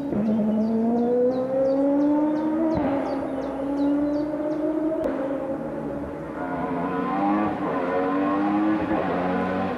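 Hillclimb race car engine accelerating hard, unseen, its pitch rising through each gear and dropping back at several upshifts.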